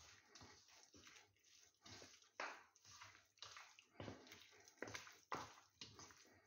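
Faint wet squishing of a hand kneading marinated chicken wings into flour in a steel bowl, a soft squelch about twice a second.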